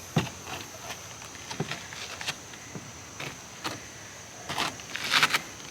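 A toddler's footsteps on playground equipment: scattered light taps and scuffs, a few louder ones near the end. A steady high-pitched insect trill runs underneath.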